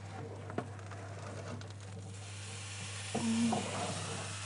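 A hot baked-vegetable tagine sizzling as it is drawn out of the oven, the hiss swelling about halfway through. A sharp clank about half a second in and a brief vocal sound about three seconds in.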